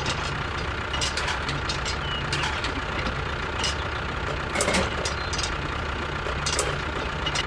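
Tractor engine idling steadily, with scattered clicks and knocks over it.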